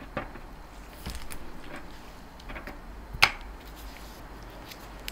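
Light taps and clicks of cookies being handled, with soft rustling about a second in: an iced cookie set down on a wire cooling rack and a plain baked cookie placed on a plastic cake-decorating turntable. The sharpest click comes just after three seconds.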